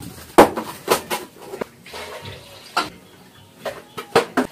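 Kitchenware clattering: a handful of sharp knocks and clinks at uneven intervals, the loudest about half a second in.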